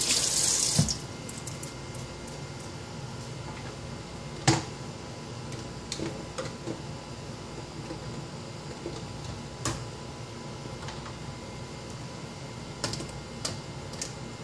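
Kitchen tap running, shut off about a second in. Then scattered light knocks and clicks of baby bottles and dishes being handled in a dish rack, the loudest about four and a half seconds in.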